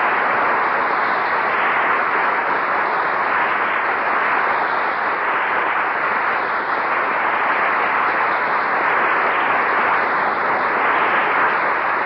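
Studio audience applauding steadily.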